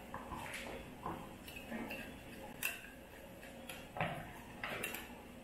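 Metal spatula clicking and scraping against a glass plate as it works and lifts fried plantain, in a series of light, irregular taps.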